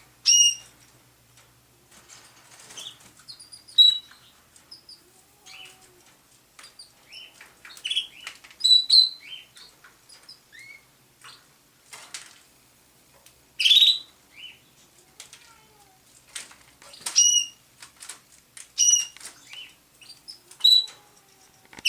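Canaries in an aviary: short, high chirping calls repeated every second or two, mixed with brief wing flutters and light knocks.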